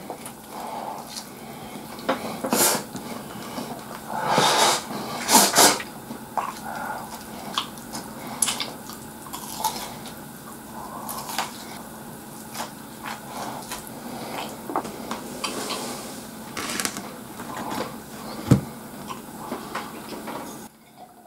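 Chopsticks clicking and scraping on a ceramic plate as katsudon is shoveled in from the plate's edge, with close-up eating noises. Near the end the plate is set down on the table with one sharp knock, the loudest sound.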